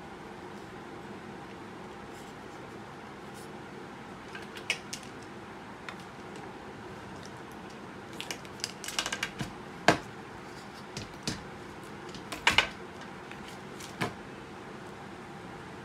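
Handling noise from an electric duck call's horn speakers, metal bracket and cables being picked up and set down on a glass counter: scattered sharp clicks and knocks, bunched a little past halfway and again about three quarters through, over a steady low hum.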